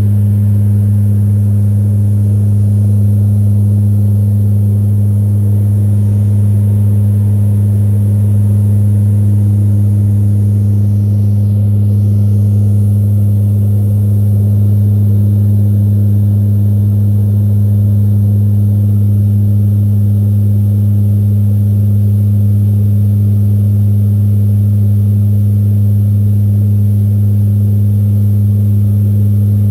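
C-130 Hercules's Allison T56 turboprop engines and four-bladed propellers in cruise, heard inside the cabin: a loud, steady drone with a strong, deep hum that holds level throughout.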